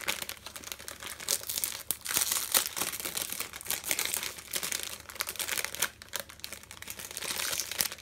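Clear plastic packaging bag crinkling and crackling as hands handle it and pull at its opening.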